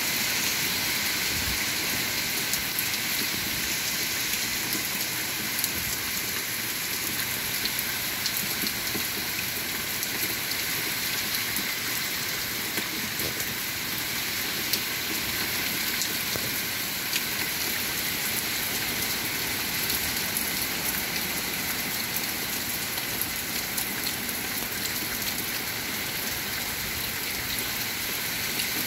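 Heavy hurricane rain pouring steadily: a dense, even hiss with scattered sharp ticks of drops striking close by.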